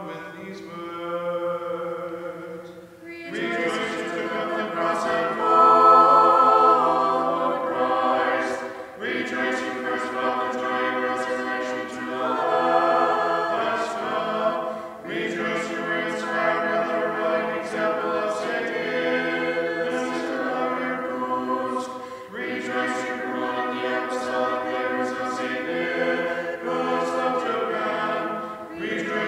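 Unaccompanied Orthodox liturgical chant sung by a few voices together, in phrases of about six seconds with short breaks between them.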